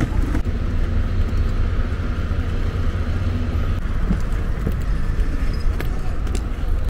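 Steady low rumble of wind and handling noise on a handheld microphone carried along on foot, with a few light footsteps on stone paving.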